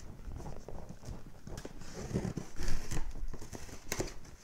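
Box cutter slitting packing tape on a cardboard shipping box, with irregular scrapes, taps and rustles of the cardboard and tape as the flaps are worked open.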